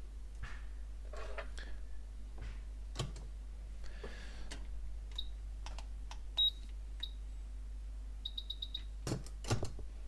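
Short, high electronic beeps from bench electronics: three single beeps, then a quick run of about eight. Scattered clicks and knocks of tools being handled are heard over a steady low hum.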